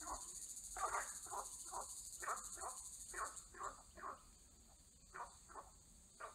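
A steady high insect chorus that drops away about halfway through, over short croaking calls from frogs in the pond, mostly in pairs, repeating every second or so.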